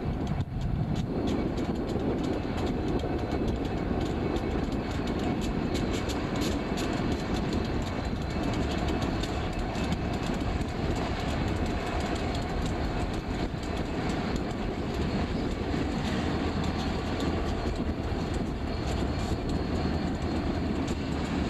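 Electro-Motive demonstrator diesel locomotives running steadily as they pull a train past, with the wheels clacking on the rails.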